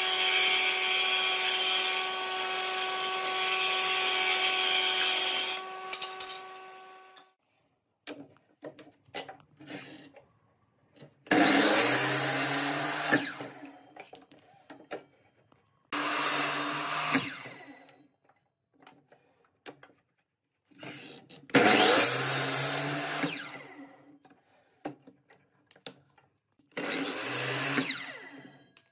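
A benchtop table saw runs and cuts a strip of pine, then is switched off about five seconds in and winds down. After some light clicks of handling, a compound miter saw makes four short cuts through the pine, each a burst of motor whine and cutting noise that dies away.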